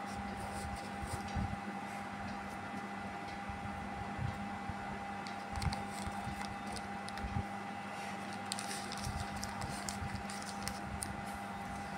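Packaging being handled: soft taps and scrapes of a foam insert against a round cardboard box, then a run of crinkling from a paper packet from about eight seconds in, over a steady hum.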